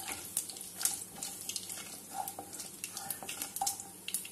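Hot oil sizzling in a pan as mustard seeds and urad dal fry, with scattered sharp pops, while a wooden spatula stirs them.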